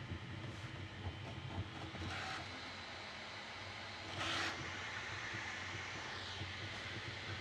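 Bambu Lab A1 Mini 3D printer running a print: a steady fan hum with the stepper motors whining in short pitched moves, the loudest one about four seconds in.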